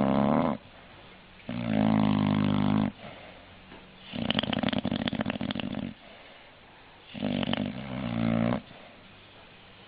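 English bulldog snoring: a rhythmic series of pitched snores about every three seconds, each lasting about a second and a half. The middle snore rattles and flutters.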